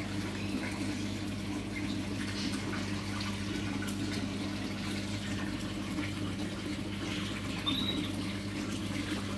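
Steady trickle of running water over a low, even electrical hum, as of aquarium filters and pumps running.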